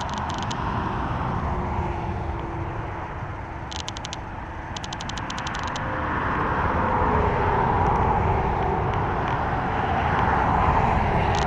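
A motor vehicle running outdoors, its steady rushing noise growing louder about halfway through, over a low rumble. Short bursts of fast, high ticking come and go.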